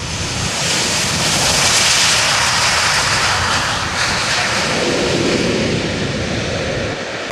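Jet aircraft engine noise, building over the first two seconds and then holding steady and loud.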